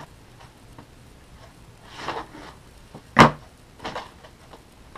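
Clear plastic blister packaging being handled and pulled open: a soft rustle, then one sharp loud crack about three seconds in and a smaller one shortly after.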